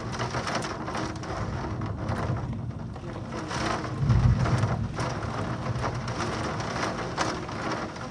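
Heavy thunderstorm rain pouring steadily, with a short low rumble of thunder about halfway through that is the loudest moment.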